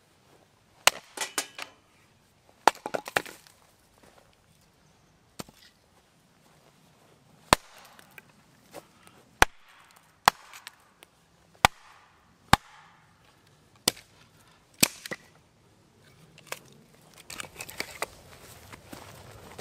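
A hatchet chopping and splitting a log on a wooden chopping block: about ten sharp chops, one every second or two. Near the end come lighter wooden knocks and clatter.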